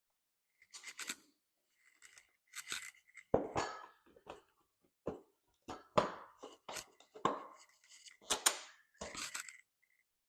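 Plastic cover being fitted over the battery of a mini motorcycle: a string of irregular clacks, knocks and short scrapes as the panel is handled and pressed into place.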